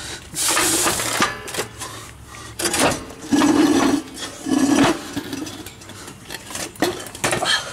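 Metal clanking and scraping in several separate bursts as a Jeep Wrangler YJ rear axle housing is hauled out from under the vehicle.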